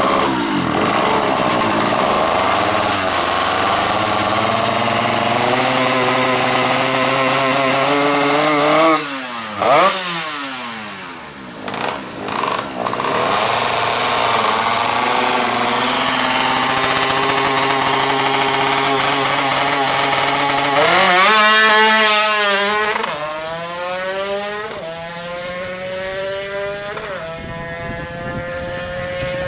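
Yamaha F1ZR two-stroke drag-bike engine, fitted with a Honda Grand CDI on test, revving hard. It holds high revs, then comes sharp throttle blips and drops about ten seconds in, and another hard rev around twenty seconds in, after which the pitch falls away and climbs slowly again.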